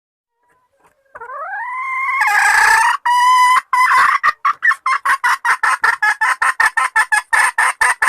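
Domestic hen calling: a drawn-out rising call about a second in, a harsh loud stretch, then a long run of rapid repeated clucks at about five a second.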